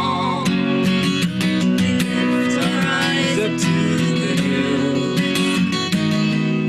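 An instrumental passage of a slow worship song: an acoustic guitar strums steady chords, with little or no singing.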